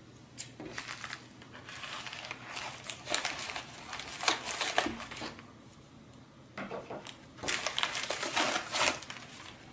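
Packaging being opened by hand: irregular crinkling and crumpling of the wrapping, in two spells with a short pause about halfway through.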